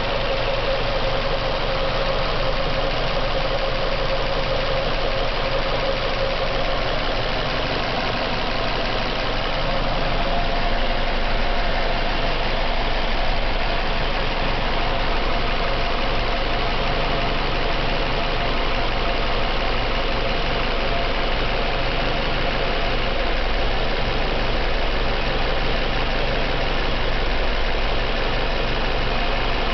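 Warmed-up car engine idling steadily with a knock in it.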